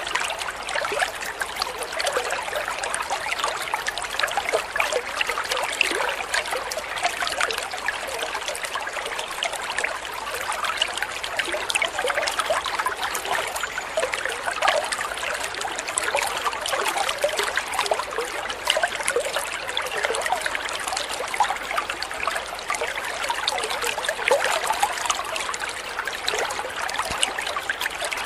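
A small stream of water pouring from a spout into a koi pond, a steady trickling splash with a dense patter of droplets.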